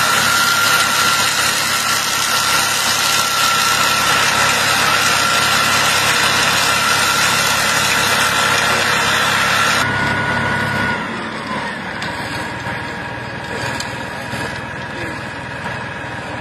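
Tractor running with a rear-mounted Bechamatic vine suckering machine working, its side rotors spinning with a steady high whine over a loud rushing noise. About ten seconds in the rushing noise drops sharply, and the whine falls in pitch and stops, leaving the engine running more quietly.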